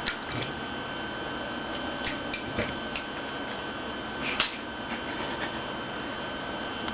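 Himalayan kitten pawing at the water in her bowl: a handful of small splashes and taps, the loudest about four and a half seconds in, over a steady hiss.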